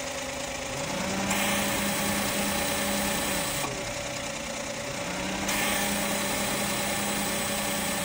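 Suzuki Lapin's 660 cc three-cylinder engine idling while the air-conditioning compressor's magnetic clutch is switched in and out. Twice the idle rises and the running grows louder for about three seconds, then drops back with a faint click at the change.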